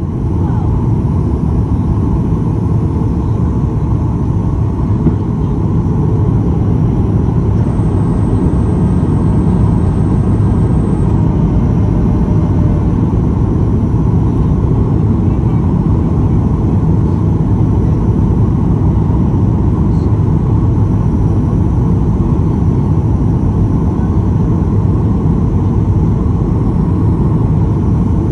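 Steady cabin roar of a Boeing 737-800 on approach, heard from a window seat over the wing: its CFM56-7B engines and the airflow make an even, deep rumble with a steady hum in the middle.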